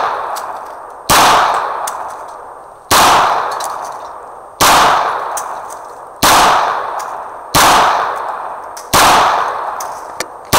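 Semi-automatic pistol fired in a slow, steady string of single shots, about one every one and a half seconds. Each shot is followed by a long echoing decay that carries into the next.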